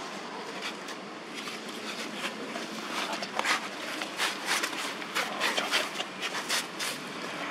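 Long-tailed macaque chewing banana: irregular wet clicks and smacks, thickest through the middle, over a steady outdoor hiss.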